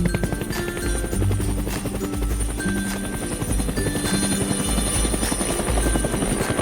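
Helicopter rotor sound effect, a fast steady chop, over background music with held notes and a pulsing bass line.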